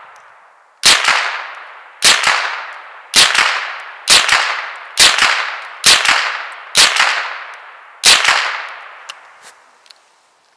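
A Gevarm E1 .22 Long Rifle semi-automatic rifle firing from the open bolt, eight shots about one a second, each followed by a fading echo. A few faint clicks follow near the end.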